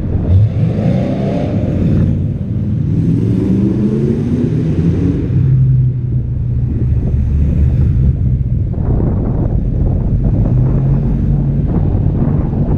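A 1941 Chevrolet's engine running as the car cruises slowly, its pitch rising twice in the first five seconds as it picks up a little speed. Heard from a camera mounted on the car's side, with wind noise on the microphone.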